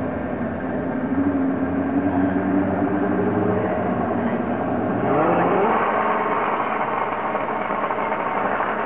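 Drag-racing motorcycle engines running at the starting line. About five seconds in they are revved harder and get louder, the pitch rising and falling.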